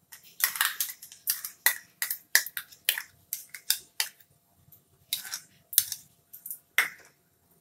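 A plastic spoon scraping palm-fruit pulp out of a small bowl and tapping on a plate: a quick run of short scrapes and taps, thinning out about halfway and picking up again near the end.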